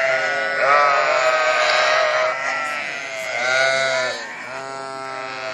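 Several sheep bleating in long, wavering calls that overlap one another.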